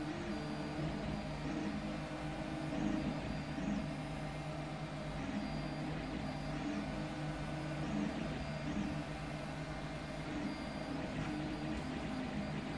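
Home-built CoreXY 3D printer running a print: its stepper motors hum in low tones that shift in pitch and start and stop every second or so as the print head changes speed and direction, over the steady whir of the hot-end and part-cooling fans.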